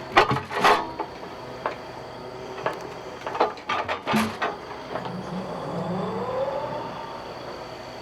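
Heavy logs being handled onto a steel sawmill log deck: a series of sharp knocks and clanks, then a machine whine that rises and falls over a low steady hum.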